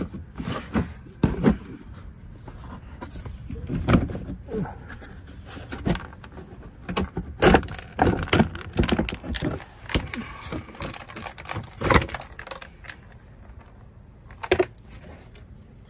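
Hard plastic underbody cover on a minivan being pried and pulled loose by hand, with irregular sharp knocks, clicks and rattles of plastic.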